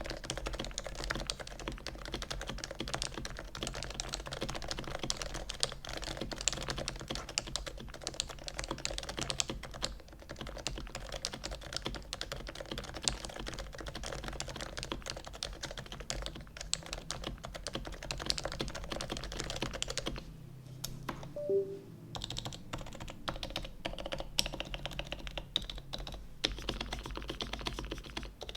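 Custom Noxary XRF keyboard with Topre switches, typed on quickly and continuously: a dense stream of rounded keystroke thocks, with a brief pause in the typing about three-quarters of the way through.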